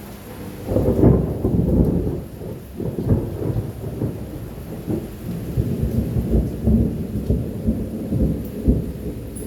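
Thunder rolling during a rainstorm: a loud, deep rumble sets in under a second in and keeps rumbling unevenly, with rain falling underneath.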